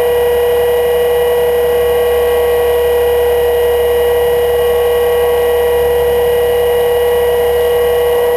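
Electric HK 500 GT RC helicopter driven by a Scorpion 1600KV brushless motor, running at a constant head speed, heard from a camera mounted on the helicopter: a loud, steady high whine with a layer of lower rumble.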